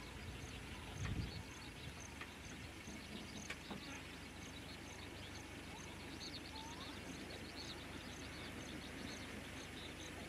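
Outdoor wildlife ambience: a high chirping call repeating a little under twice a second, with a few scattered bird calls. A low thump about a second in.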